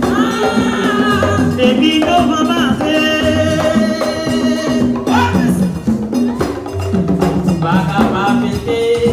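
Live Haitian rasin (roots) music: hand drums and percussion play under singing voices.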